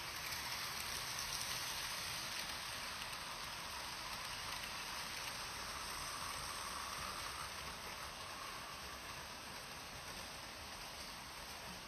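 Vintage Märklin model trains running on stamped-metal M-track: a steady rattling hiss of metal wheels and small motors. It is loudest in the first couple of seconds as a locomotive passes close by, then slowly eases off.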